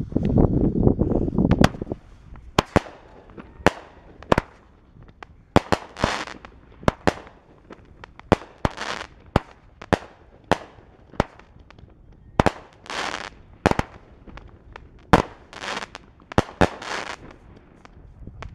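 A Phantom Fireworks Strobing Energy 200 g cake firing off its shots: a string of sharp launch thumps and bangs, several followed by about a second of crackling, fizzing strobe stars. A low rumble fills the first two seconds.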